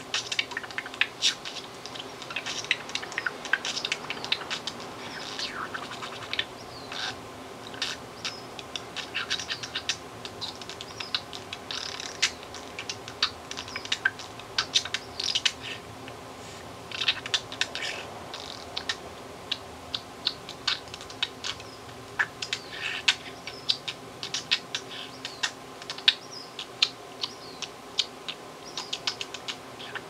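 Budgerigar chattering in rapid, irregular runs of sharp clicks and short chirps, a percussive beatbox-like string of sounds the bird has learned by imitating human beatboxers.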